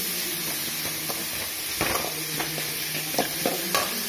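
Sliced onions and green chillies sizzling in hot oil in an aluminium kadai while a steel slotted ladle stirs them. There is a steady frying hiss, and the ladle clinks and scrapes against the pan a few times in the second half. The onions are being sautéed until they turn brownish.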